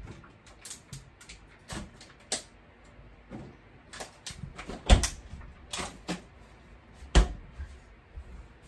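Scattered clicks and knocks of kitchen items being handled and put away during tidying, with two louder thumps about five and seven seconds in.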